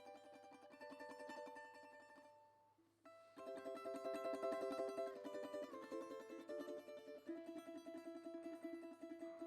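Background music played on plucked strings, with tremolo notes and changing chords; it fades out about two and a half seconds in and resumes a moment later.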